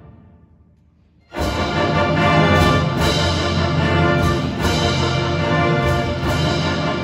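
Youth symphony orchestra: the music dies away into a short, near-silent pause, then the full orchestra comes back in suddenly just over a second in and plays on loudly.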